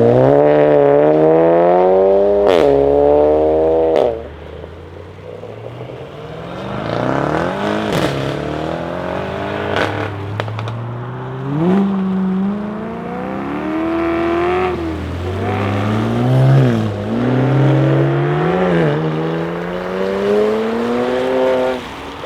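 Seat Leon Cupra ST's turbocharged 2.0-litre four-cylinder with a custom exhaust accelerating through an upshift, then going off throttle about four seconds in with sharp exhaust crackles. After that the engine is revved up and down repeatedly at a lower level, with a few more pops.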